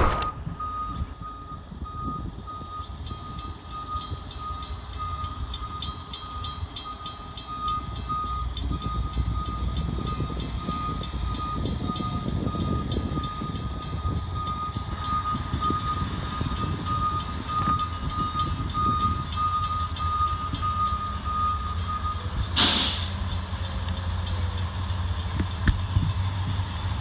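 Grade-crossing warning bell ringing in a fast, steady run of pulsed dings, which stops about five seconds before the end. Under it the low rumble of an approaching diesel freight train grows louder. A brief whoosh comes just after the bell stops.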